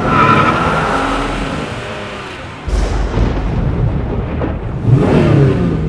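Car engine revving and racing past, with a deep booming rumble that comes in suddenly about three seconds in and a second surge near the end.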